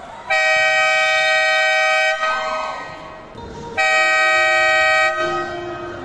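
A horn sounding two long, steady blasts, the first about two seconds long and the second a little shorter, starting about three and a half seconds in.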